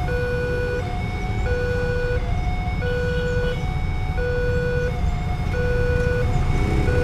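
Railway level-crossing warning siren sounding a two-tone electronic alarm, switching between a lower and a higher tone about every three quarters of a second, over a steady low rumble. Near the end a vehicle engine rises in pitch.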